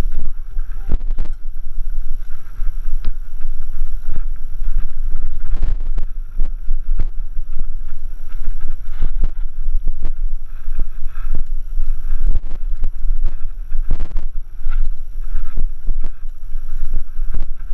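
Mountain bike riding down rough singletrack: steady wind rumble on the microphone with frequent knocks and rattles as the bike jolts over rocks and roots.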